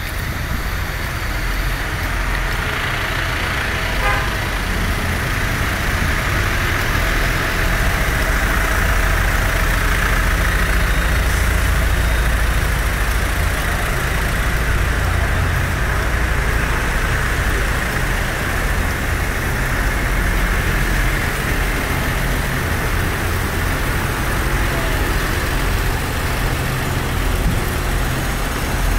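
Diesel engines of a long line of large farm tractors running together, a loud, steady low rumble.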